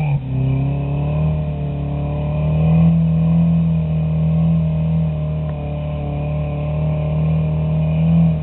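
Off-road truck's engine running at steady, held revs under load as it crawls up a steep, rutted dirt trail, the pitch wavering only slightly.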